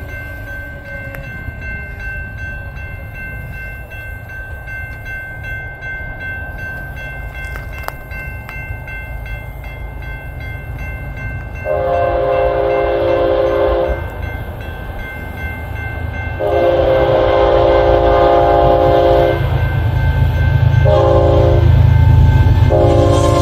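BNSF freight locomotive horn sounding the grade-crossing pattern as the train approaches: two long blasts starting about halfway through, a short one, then a long one beginning near the end. A low diesel rumble from the lead locomotives grows louder under the horn, and the crossing bell keeps up a steady high ringing.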